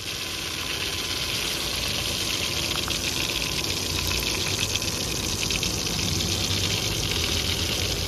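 Beef vadai patties deep-frying in hot oil: a steady sizzle with fine crackling.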